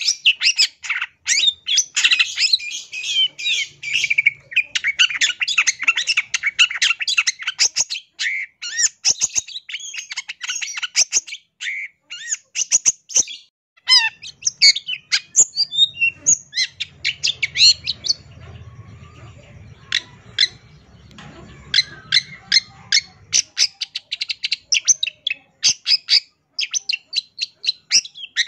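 Long-tailed shrike (cendet) singing a rapid, varied song of sharp chips, squeaky notes and trills, broken by brief pauses, the song packed with mimicked fillers. A faint low rumble sits under it for several seconds midway.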